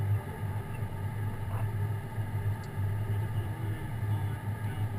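Airliner engines heard from inside the cabin while taxiing: a steady low hum with an even rumble.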